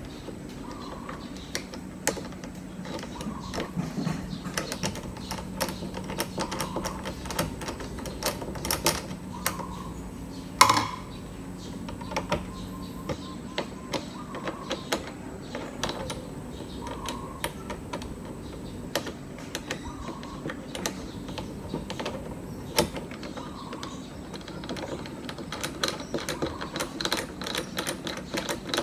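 Irregular small clicks and light metal taps as an Allen key turns a bolt and a fitting is fastened onto a kayak's accessory mount, with one sharper knock about ten seconds in.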